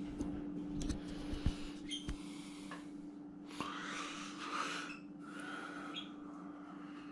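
Quiet room with a steady low hum, and a few light taps and rustles from paint cups and craft supplies handled on a table.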